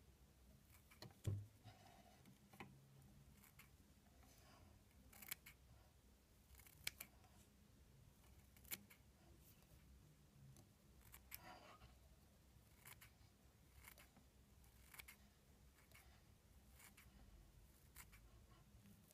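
Small straight scissors snipping synthetic ice-dubbing fibres to trim a fly's body into a teardrop shape: faint, irregular snips about one every second or so. The loudest snip, about a second in, comes with a dull knock.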